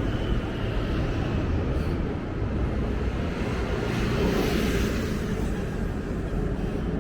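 Steady city street noise: a low, continuous traffic rumble, with a swell of hiss about four seconds in.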